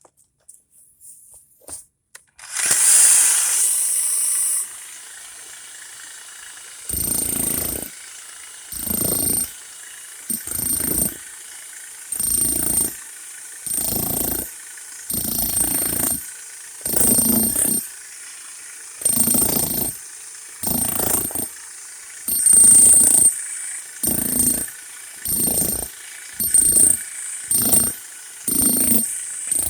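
Small breakout jackhammer hammering in short bursts. There is one longer run early, then about fifteen bursts of roughly a second each, with about a second's pause between them.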